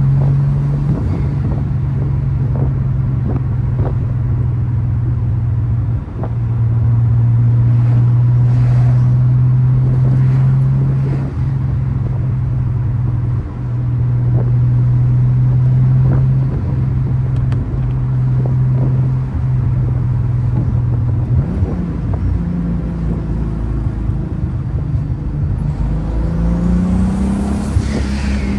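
Turbocharged VR6 engine and exhaust pulling at steady revs, the note breaking off briefly several times and picking up again at a slightly different pitch. It goes rougher and lower in the second half and climbs in pitch near the end.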